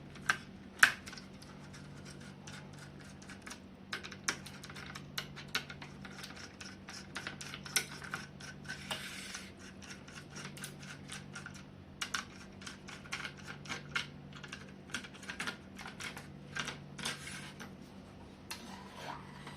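Small screwdriver backing out a laptop's heatsink screws and the metal heatsink being handled: many short, irregular clicks and taps, the sharpest about a second in. A faint steady hum sits underneath.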